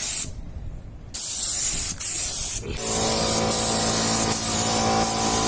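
Compressed-air paint spray gun hissing as it sprays white PU automotive paint, cutting off briefly near the start as the trigger is let go and then spraying again. From about halfway through, a steady machine hum with several tones runs under the hiss.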